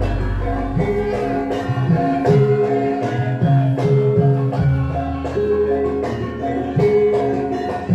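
Javanese gamelan accompanying a lengger dance: metallophones play a repeating melody over drum strokes that bend in pitch, typical of the kendang, and a deep gong tone comes in about four and a half seconds in.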